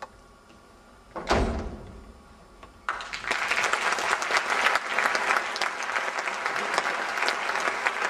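A single sharp stamp and crunch about a second in as a cloth-wrapped glass is stepped on, the glass-breaking of a Jewish wedding ceremony. About two seconds later applause starts and carries on.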